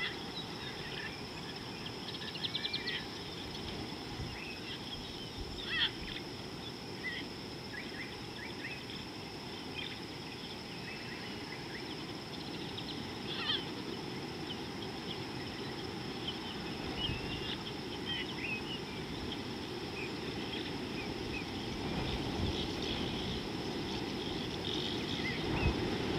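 Outdoor bush ambience: scattered short chirps and calls of small birds over a steady low rushing noise and a constant thin high tone. The low noise grows louder near the end.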